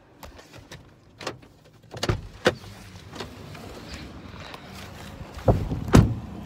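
Knocks, clicks and rustles of someone climbing out of a car with a phone in hand, with two heavy thumps near the end, the second of them the car door being shut.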